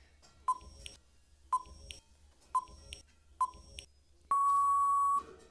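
Quiz countdown timer sound effect: four short electronic beeps about a second apart, then one longer steady beep at the same pitch, marking that the time to answer is up.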